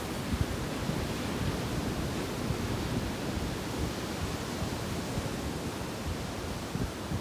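Sea surf on a beach: a steady, even wash of waves.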